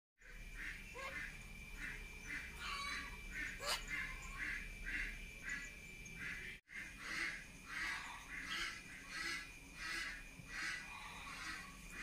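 Short raspy bird calls repeated steadily, about two or three a second, over a faint steady high tone; the sound cuts out for an instant about halfway through.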